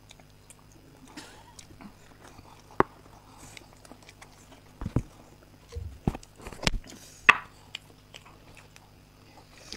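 Close-up eating sounds from a person chewing and biting into chocolate cake, with scattered sharp clicks and knocks, the loudest about three and seven seconds in.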